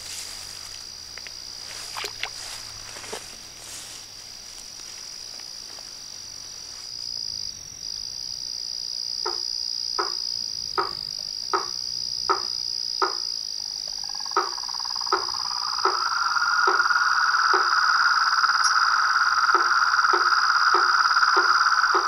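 Night chorus of frogs and insects at a pond: a steady high-pitched trill underneath, short frog calls repeated about every three-quarters of a second starting partway through, and a louder continuous chorus that swells in after about fifteen seconds.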